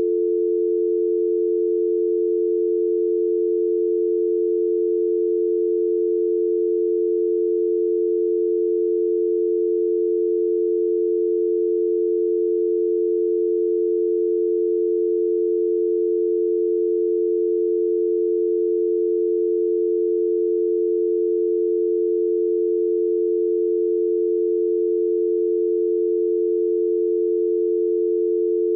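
Telephone dial tone: two low tones blended into one steady, unbroken hum with no on-off rhythm.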